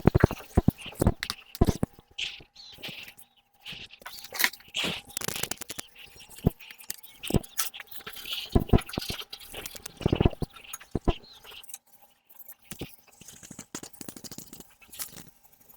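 Hand sanding of a car's primed body with sandpaper: uneven scraping strokes broken up by knocks and handling clatter.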